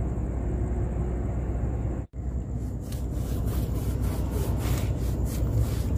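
Steady low rumble of background noise, cut off by a brief dropout about two seconds in; after it, faint scratchy strokes of a paint brush being worked over the wooden planks of a boat deck.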